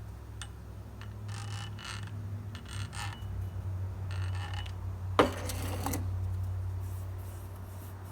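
Metal drill-vise parts being handled: a few short scrapes, then one sharp metallic clink a little after five seconds. A steady low hum runs underneath.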